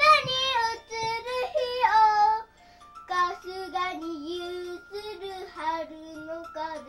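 A young girl singing: a loud, high phrase of held notes, then after a short break a lower, quieter sung line.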